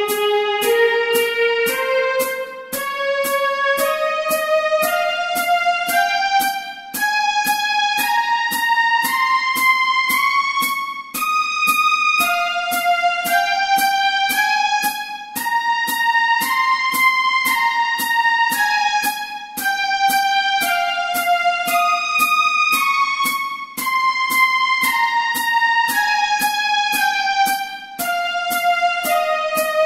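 Computer-rendered playback of a violin scale exercise: single sustained notes climbing and descending in stepwise runs over about two octaves, with a metronome click on every beat at 114 beats per minute.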